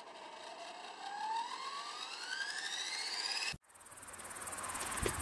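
Electric RC helicopter spooling up: a whine rising steadily in pitch as the motor and rotor speed up, cut off suddenly about three and a half seconds in. After the cut, a steady high-pitched chirring of insects such as crickets.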